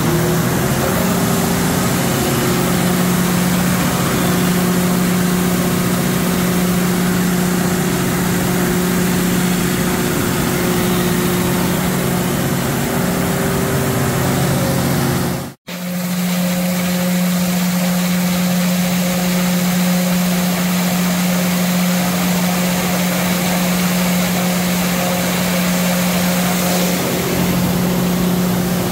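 Cummins LTA turbocharged diesel generator set running steadily at its governed speed, with an even engine note. It is warming up after a front main seal replacement, run to get hot for the oil change and to check the new seal for leaks. The sound drops out for an instant about halfway through, then resumes unchanged.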